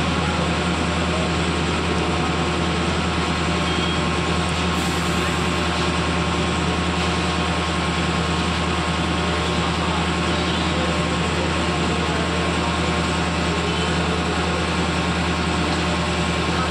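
Concrete mixer truck's diesel engine running steadily at a low, even idle, with no revving.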